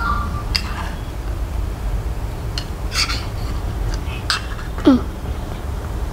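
Metal spoon clinking and scraping against a stainless steel bowl as thick whipped dalgona coffee foam is scooped out, a handful of sharp clinks over a steady low hum. A short falling squeak about five seconds in.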